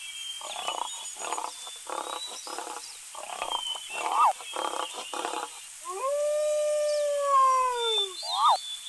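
A lion giving a rhythmic series of about nine short grunting roars. From about six seconds in, a wolf gives one long howl that rises and then slowly falls. Two loud short squeaks cut in, and faint bird chirps run underneath.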